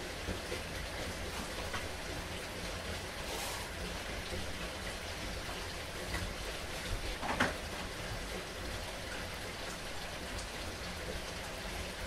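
Heavy rain falling steadily, with one brief louder sound about seven seconds in.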